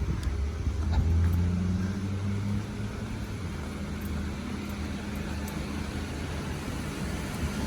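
A motor vehicle's engine running with a steady low hum, loudest about a second in and then easing off.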